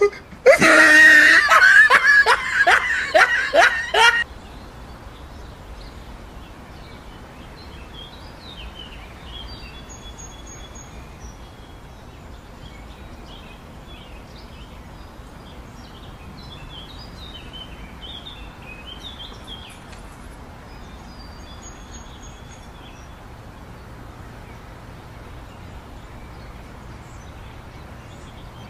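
A burst of hearty laughter in quick ha-ha pulses for about four seconds, then a steady outdoor background with scattered bird chirps.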